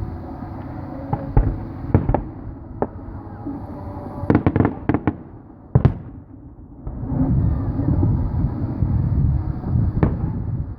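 Fireworks bursting overhead: scattered sharp bangs, then a quick string of crackling pops about four seconds in and a single loud bang just before six seconds. After that comes a low rumbling noise with one more bang near the end.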